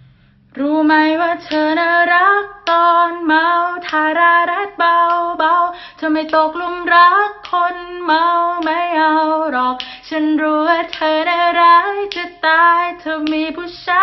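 A woman singing a melody in short phrases, starting about half a second in, with little accompaniment beneath the voice.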